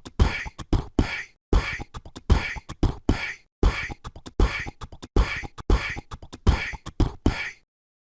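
Outro beat of beatbox-style percussive hits in a steady rhythm, stopping abruptly about seven and a half seconds in.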